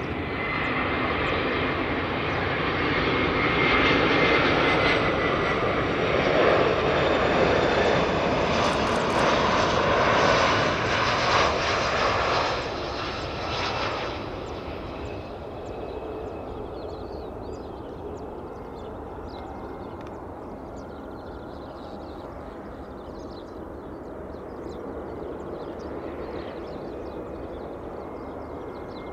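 Airbus A340's four jet engines on landing approach, passing low and close: a loud, dense roar with a thin steady whine in the first few seconds. About 14 seconds in it drops abruptly to a quieter, more distant rumble as the jet rolls toward the runway.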